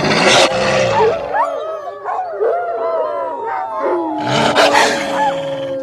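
Wolf calls used as a dire wolf sound effect: several wolves howling and yipping over one another in wavering, gliding pitches. There are two harsh, noisy snarling bursts, one at the start and one about three-quarters of the way through, and a long steady howl runs through the last part.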